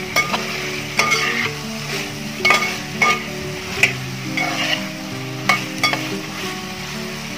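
Metal spatula stirring thick lemon pickle masala in a metal pot over low heat, scraping against the pot roughly once a second, with a light sizzle of hot oil underneath.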